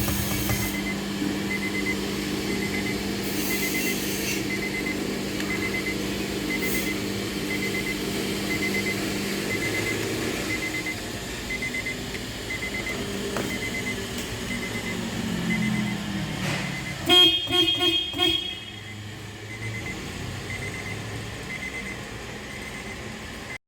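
Honda Mobilio's car horn sounding in several short toots, about three-quarters of the way through, over a steady low hum and faint regular ticking.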